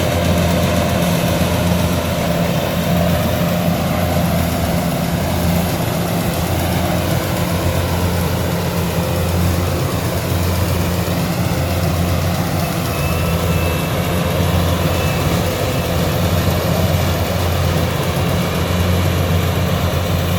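Rice combine harvester's diesel engine running steadily, a constant low drone.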